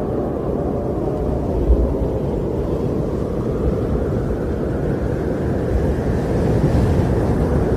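Wind blowing steadily, a deep rushing noise with no distinct tones, swelling a little in a gust near the end.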